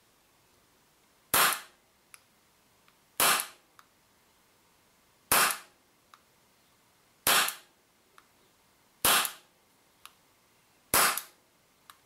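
WE Colt 25 gas-blowback airsoft pistol fired six single shots, about two seconds apart, through a chronograph. Each is a sharp pop with a short fading tail, followed by a faint small click after most of them. The shots clock about 220 fps.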